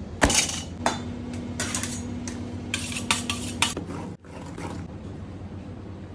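A heavy thud just after the start as raw meat is slammed onto a wooden cutting board, then a knife slicing and chopping through lamb liver on the board in a run of short strokes, sparser after about four seconds.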